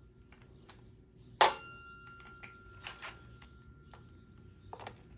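Scattered light clicks and knocks of tools and parts being handled on a small engine, the sharpest about a second and a half in, over a faint steady hum.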